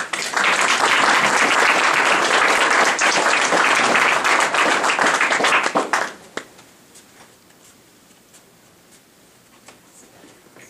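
Audience applauding, starting abruptly and lasting about six seconds before dying away to a few scattered claps.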